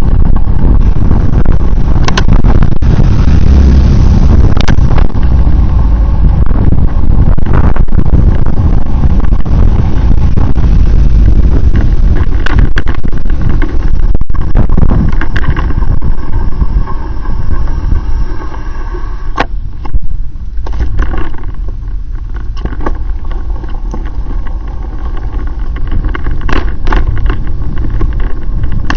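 Loud travelling noise of a moving vehicle, mostly a deep rumble of wind and road on the microphone, with scattered sharp clicks and knocks. It eases somewhat from about halfway through, then builds again near the end.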